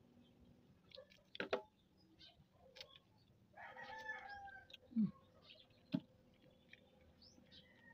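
A rooster crowing once in the background, starting a little over three and a half seconds in and lasting about a second. Around it come a few sharp clicks and one louder smack about five seconds in, as rambutan is peeled by hand and eaten.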